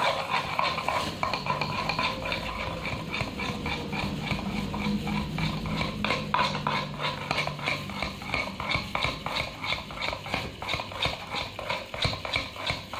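Hair dye mixture being stirred in a small bowl: rapid, rhythmic small scrapes and clicks of the stirrer against the bowl.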